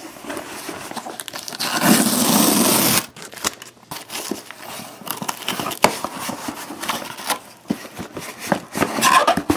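Cardboard shipping box being torn open by hand: a loud tearing rip of cardboard lasting about a second, roughly two seconds in, followed by scattered rustling, scraping and clicks of the cardboard flaps being pulled apart.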